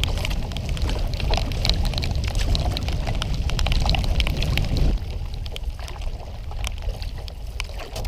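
Wind buffeting the microphone over water splashing and dripping around a canoe on choppy lake water, with many small splashes and drips; the wind rumble drops off about five seconds in.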